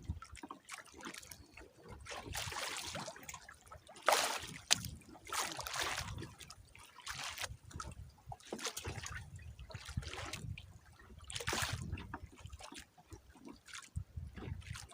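Sea water splashing and trickling in irregular surges every second or two, over a low rumble.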